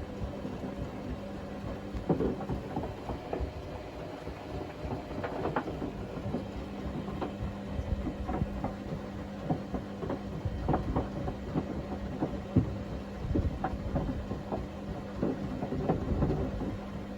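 Logik L712WM20 washing machine in its wash cycle, the drum tumbling a load of tea towels in water: a steady motor hum under irregular swishes and soft knocks.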